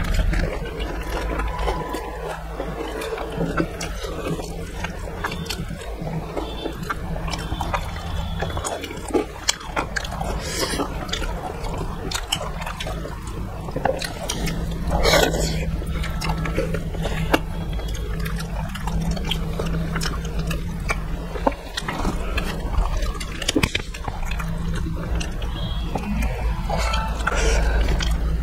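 Close-miked eating: wet chewing and smacking of curry-soaked food eaten by hand, with many small sharp clicks, over a low steady hum.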